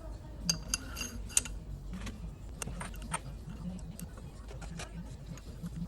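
Small metal parts of a GM power steering pump clinking and clicking as the pump is taken apart, a few sharp clicks at irregular intervals.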